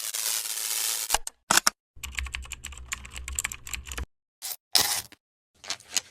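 Computer keyboard typing: a steady hiss for about the first second, a few separate clicks, then a fast run of key strokes for about two seconds, and scattered single taps near the end.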